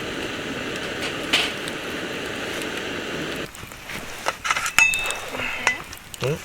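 Dense, even sizzling and crackling of food cooking over a campfire. It cuts off abruptly about three and a half seconds in, leaving scattered clicks and knocks.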